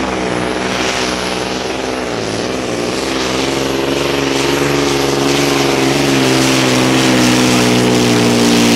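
Volvo FH16 pulling truck's diesel engine running flat out under heavy load as it drags a weighted pulling sled through the dirt. Its steady drone sags briefly about two seconds in, then recovers and climbs a little toward the end.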